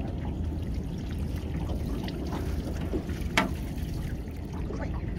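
Water lapping and trickling against the hull of a small aluminum boat, with a few faint clicks and one sharper click about three and a half seconds in.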